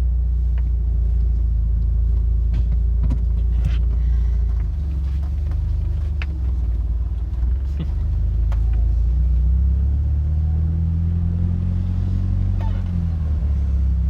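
A DSM's engine running as the car drives, heard from inside the cabin with the windows down. The note drops about four and a half seconds in, then climbs again from about ten seconds as the car pulls. No brake squeal is heard: the new brake pads are quiet.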